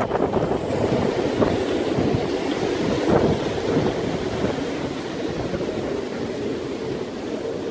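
Strong wind blowing across the microphone: a continuous rushing rumble that rises and falls slightly.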